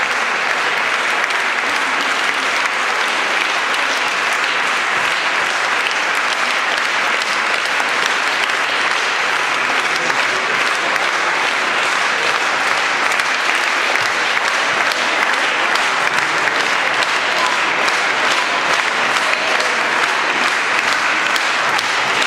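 Audience applauding: a long, even round of dense clapping that holds at one level.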